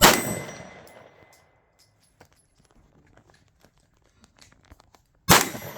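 Two 9mm Glock 19 pistol shots about five seconds apart, each echoing away over about a second, with a metallic ring from the steel target after the first.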